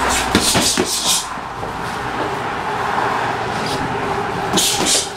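Boxing gloves hitting and brushing during sparring: a cluster of sharp slaps and scuffs in the first second and another near the end, over a steady rumbling background noise.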